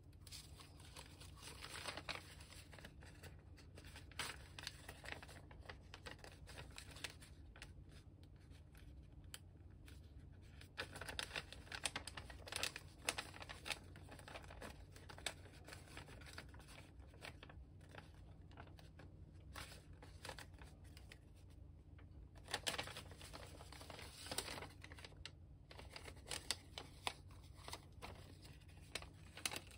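Origami paper rustling and crinkling as it is folded and creased by hand, with short scrapes and soft taps that come in busier flurries about a third of the way in and again later. A low steady hum runs underneath.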